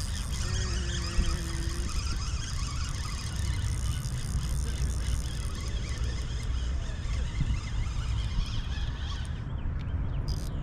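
Steady rush of river water with wind on the microphone, and a brief faint steady tone about half a second in.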